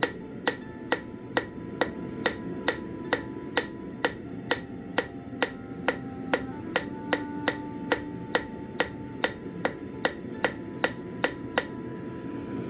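Hammer blows on a steel horseshoe against an anvil at a steady pace of about two a second, each with a short metallic ring, as the horseshoe is forged; the blows stop near the end.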